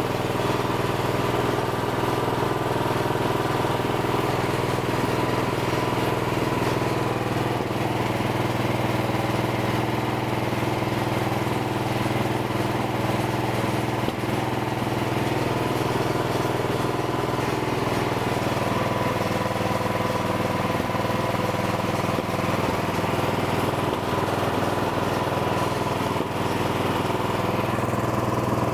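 Craftsman snowblower engine running steadily at an even speed during a test run.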